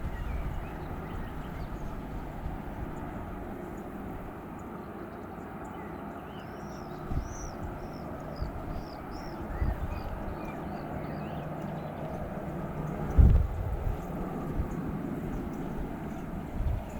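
Distant Airbus A321 jet engines running, a steady rumble. Small birds chirp about six to eleven seconds in, and a few low thumps come through, the loudest about thirteen seconds in.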